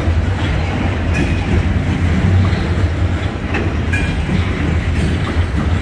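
Loaded coal hopper cars of a freight train rolling past on the near track: a steady low rumble of steel wheels on rail, with a few sharp clicks and short faint high squeals.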